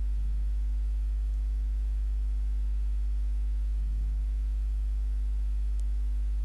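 Steady low electrical hum picked up by the microphone, one unchanging low tone with its even overtones. Two faint, brief low sounds come near the start and about four seconds in.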